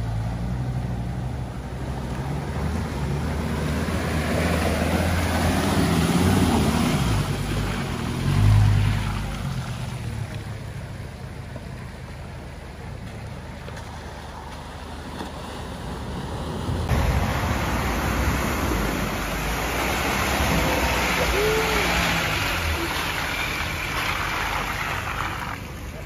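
Four-wheel-drive vehicles fording a river: engines running low under the rush and splash of water pushed aside by the wheels. The water noise swells twice as vehicles come through, with a brief louder surge about eight seconds in and a sudden change in sound a little past halfway.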